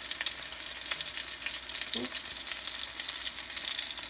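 Halibut fillets shallow-frying in oil and melting butter in a stainless steel pan: a steady sizzle with many small pops and sputters.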